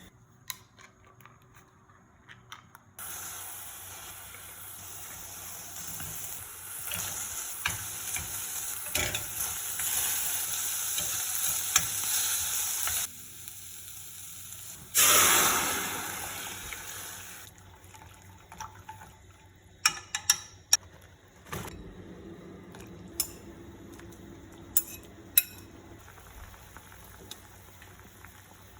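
Food frying in a pan with a steady sizzle for about ten seconds. Near the middle comes a louder hiss that fades over a couple of seconds. Later there are a few sharp clinks of kitchenware.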